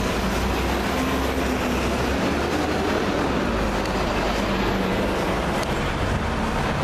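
Mercedes-Benz SLS AMG Black Series' 6.2-litre V8 running steadily at low revs as the car creeps forward in slow street traffic, with no revving, over the general noise of traffic and a nearby bus.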